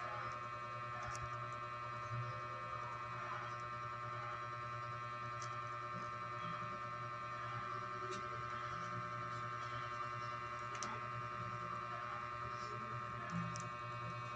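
A steady electrical hum made of several held tones, with a few faint clicks.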